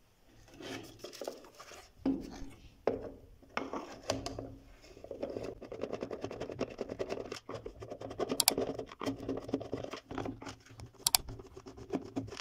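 The plastic base of a National juicer-blender being handled and turned over with a few knocks, then a screwdriver grinding screws out of its underside: a fast, continuous scraping and clicking from about five seconds in.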